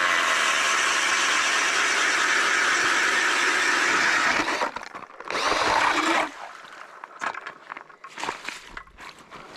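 Powered ice auger drilling through the ice for about four and a half seconds, then a second short burst of drilling about five seconds in, followed by irregular scraping and knocking.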